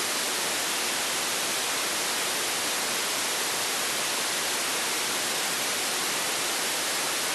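Steady FM receiver hiss with the squelch open: a software-defined radio demodulating a 10-metre FM channel with no carrier on it, so only noise comes through. The even hiss shows the repeater's signal has dropped.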